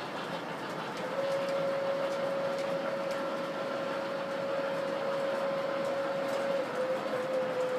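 Model trains running on the layout's track, with a steady whine that begins about a second in and wavers near the end.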